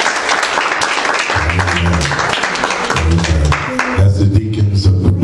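Congregation clapping over music with held low bass notes; the clapping dies down about four seconds in while the music carries on.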